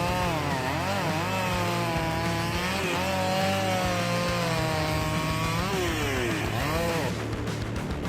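Gasoline chainsaw running while it cuts wood, its engine pitch dipping and rising again and again as the chain takes the load. It changes abruptly near the end.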